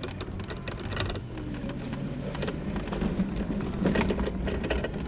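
A buggy driving over brush, with twigs and branches crackling and snapping under it in irregular clicks over the steady hum of its drive. Something is rubbing underneath the buggy, which the driver takes for something caught just underneath.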